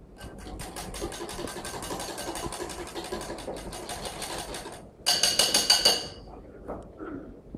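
Wire balloon whisk beating a liquid batter in a bowl, a fast even rhythm of about five or six strokes a second. About five seconds in, a second of louder, ringing clatter of the whisk against the bowl, then a few scattered knocks.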